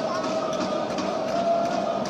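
Arena crowd noise: a large crowd of supporters cheering and chanting, with a sustained wavering note held throughout and faint rhythmic claps or beats.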